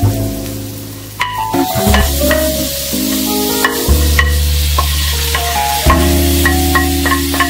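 Background music with held bass chords and short high notes, over the sizzle of onion masala frying in a pan as vegetables are tipped in.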